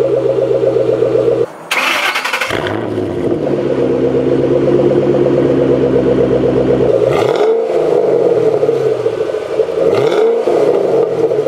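2010 Shelby GT500's supercharged V8 idling through its exhaust, with a short burst of noise about two seconds in. It is then revved in quick blips that rise and fall, about seven and ten seconds in.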